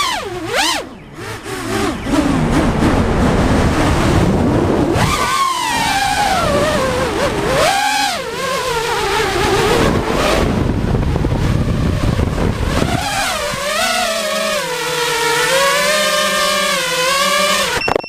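Drone's electric motors and propellers whining close to the onboard camera, the pitch rising and falling with the throttle, over rushing wind noise. The sound cuts off suddenly near the end.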